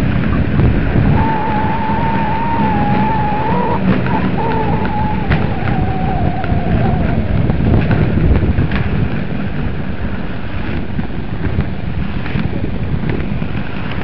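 Inline skate wheels rolling on a tarmac path, a steady low rumble with wind buffeting the microphone. A thin wavering whine sounds for several seconds in the first half.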